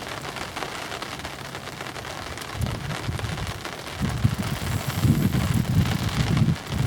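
Wind buffeting the microphone outdoors: irregular low rumbling gusts that grow stronger in the second half, over a steady hiss.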